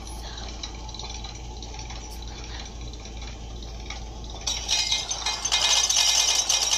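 Hands handling something close to the microphone over a faint steady hiss. About four and a half seconds in comes a louder rattling, crackling rustle that lasts about two seconds.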